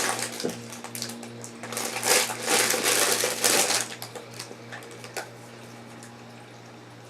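Plastic squishy packaging crinkling and rustling as it is handled, loudest for about two seconds near the middle, then only faint handling noises with a few small clicks. A low steady hum runs underneath.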